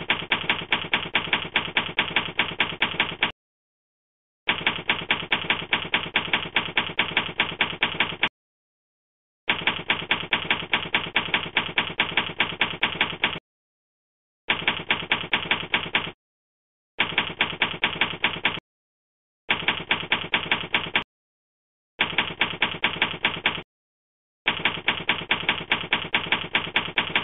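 Typewriter key strikes as a sound effect: runs of sharp, evenly spaced clacks, about four or five a second, stopping and starting again eight times with short silences between the runs.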